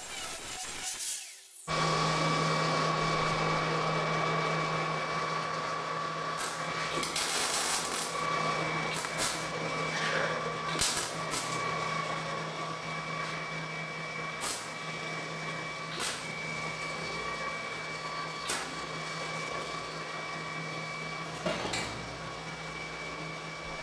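An angle grinder grinding a steel joint for the first second and a half, then electric arc welding on steel square tubing: a steady crackling hiss over a constant electrical hum, with sharp pops every second or two. It stops abruptly at the end.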